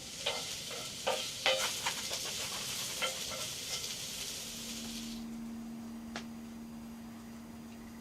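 A hissing noise with sharp clicks and clinks that stops about five seconds in, while a steady low hum starts shortly before and continues.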